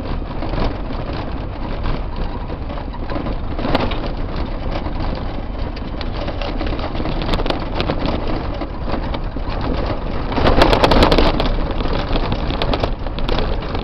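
Cab noise of an electric-converted Ford Courier pickup driving over a rough, rocky dirt track, with no engine note: tyres crunching on gravel and the body rattling and knocking over bumps. It gets louder and rougher for about a second, about ten and a half seconds in.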